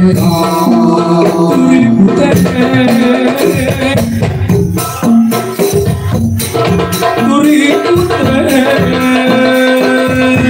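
Background music: held melodic notes over a busy percussion beat.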